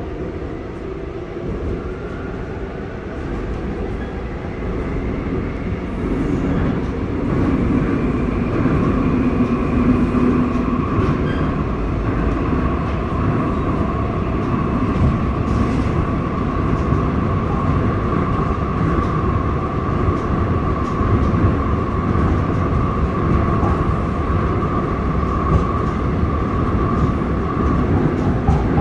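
Seoul Subway Line 5 electric train running, heard from inside the passenger car. Over the first several seconds a whine rises in pitch and the rumble grows louder as the train picks up speed, then it settles into a steady whine over the track rumble.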